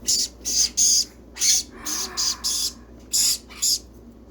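Baby sun conure chick giving a run of short, scratchy begging calls without a clear pitch, in quick clusters of two or three.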